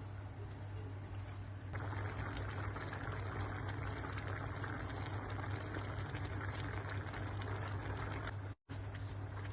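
Ginisang mongo (mung bean stew) cooking in a pot, a dense crackling, bubbling noise over a low steady hum. The noise gets louder about two seconds in and cuts off abruptly near the end.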